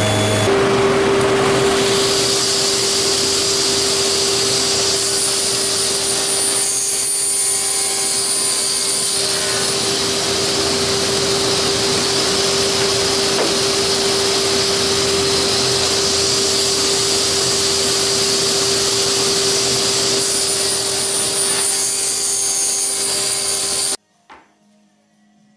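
Sliding table saw running with its dust extraction: a steady machine noise with one constant hum note, which cuts off suddenly near the end.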